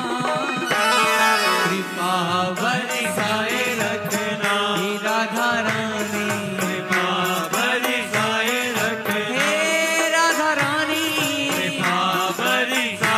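Hindi devotional bhajan to Radha and Krishna: a voice chanting a gliding melody over a steady drone and instrumental accompaniment.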